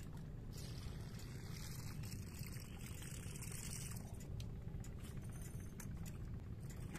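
A fishing lure pulled across the water surface on the retrieve, a splashy hiss that stops about four seconds in, over a steady low wind rumble.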